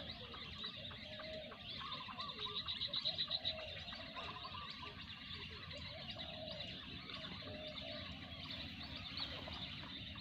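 A flock of wild ducks calling, many short calls overlapping one another. A fast, high trill about two to three and a half seconds in is the loudest sound.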